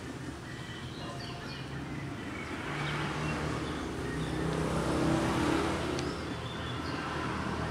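A motor vehicle's engine running nearby, a low steady drone that grows louder about five seconds in and then eases off, as when it passes.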